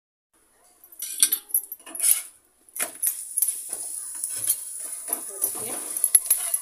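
Metal spatula clinking and scraping against a hot iron tawa as a paratha is lifted, turned and pressed, starting about a second in, over a steady light sizzle of the frying paratha.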